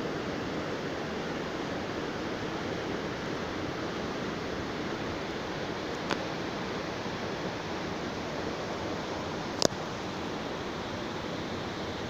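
Waterfall: a steady rush of falling water. Two sharp clicks cut through it, a faint one about six seconds in and a louder one near ten seconds.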